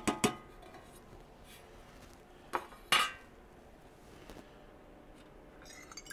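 Metal lid of a gallon can of carburetor cleaner clicking as it is pulled off, then two sharp metallic clanks about a third of a second apart as the lid is set down on the workbench.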